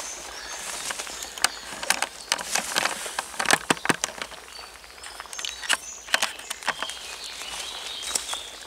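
Footsteps crunching through dry leaf litter along with the camera being handled: irregular crackles and rustles, loudest a little past the middle.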